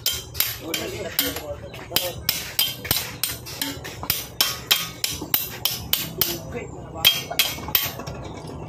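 Hammer blows struck in a steady run, about three a second, stopping shortly before the end.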